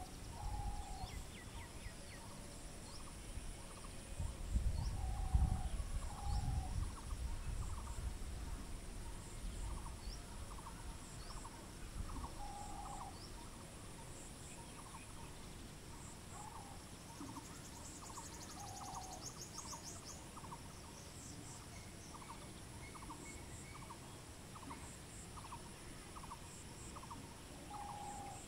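Bird calls: a short two-part note repeats every few seconds over fainter, quick ticking calls that come more often in the second half. High faint chirps sit above them, and a low wind rumble is loudest in the first few seconds.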